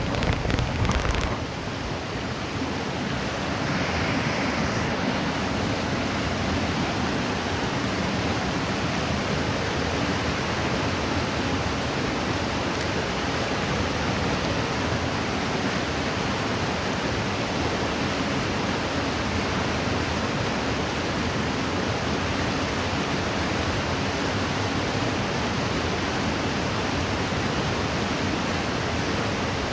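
River water rushing, a steady, even hiss. Wind buffets the microphone for about the first second.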